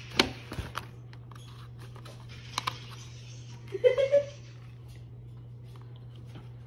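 A few light knocks and handling noises from a ceramic gift cup and its cardboard box being shown, over a steady low hum, with a brief murmur of a voice about four seconds in.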